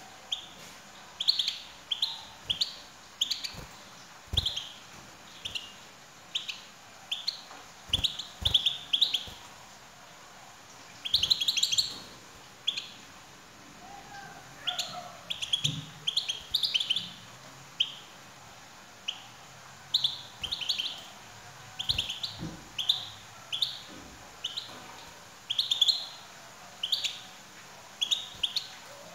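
European goldfinch chirping: short, bright calls one or two a second, running into quick clusters here and there. This is the chirping of a female goldfinch that is used to coax a male into song. A few soft low thumps sound between the calls.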